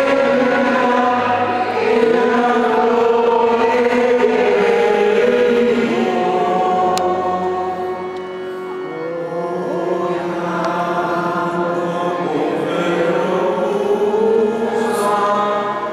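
A choir singing a hymn in slow, held lines, echoing in a large cathedral; it grows briefly softer about halfway through.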